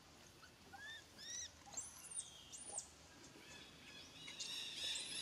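Baby macaque crying: a few short, high, arching squeals, then a longer, steadier squeal near the end. These are the distress cries of a hungry infant calling for its mother.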